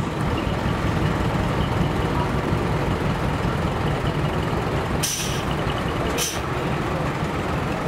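Diesel engine of a decorated medium-duty truck running with a steady low rumble. Two short, sharp air-brake hisses cut in about five and six seconds in.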